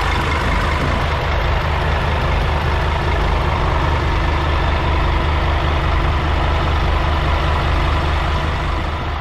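Scania N250UD bus's five-cylinder diesel engine idling steadily, heard up close at its exhaust outlet under the floor.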